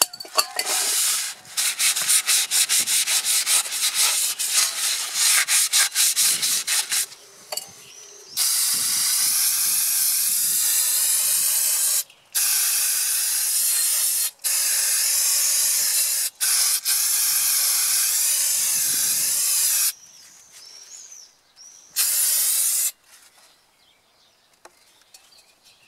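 A cloth wiping a new brake disc in quick rubbing strokes, then aerosol brake cleaner hissing in a long spray from about eight seconds in, broken by a few short pauses, with one more short burst near the end.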